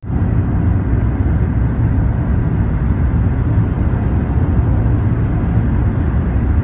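Car driving at highway speed: a steady low rumble of road and engine noise.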